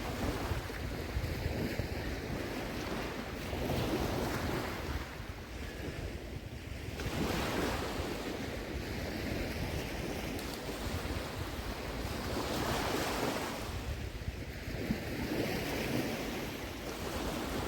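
Small sea waves washing onto a sandy beach, swelling and fading every few seconds, over a steady low rumble of wind on the microphone.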